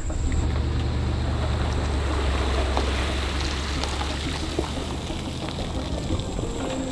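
Pickup truck engine running low and steady as it pulls an empty boat trailer up a ramp out of the water, with water pouring and splashing off the trailer. The engine hum fades near the end as the truck moves away.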